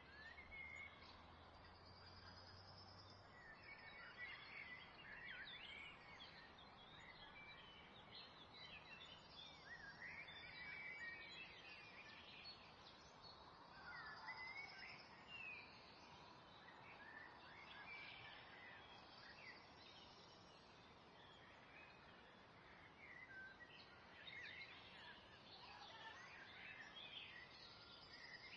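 Faint chirping of birds, many short calls overlapping, over a low steady hiss.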